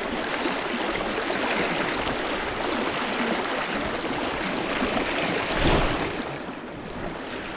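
River water flowing, a steady rushing hiss, with a short louder swell about five and a half seconds in.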